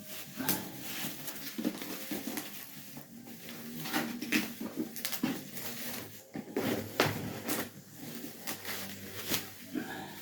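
Packaging being handled while the diesel heater unit is unpacked: irregular rustles, scrapes and short knocks with no steady rhythm.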